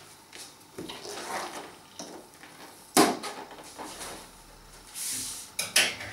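Handling noises around a latex balloon and scissors: rustling and small clicks, one sharp snip-like click about three seconds in, and two quick knocks near the end as things are set down on a wooden table.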